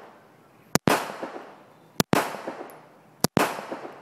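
Unsuppressed semi-automatic pistol firing reloaded rounds: three shots about 1.3 seconds apart, each a sharp crack followed by a fading echo.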